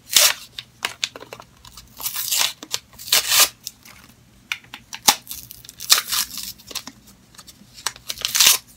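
Maybelline Baby Lips lip balm packaging being torn and crinkled open by hand, in a series of short rasping tears with pauses between them.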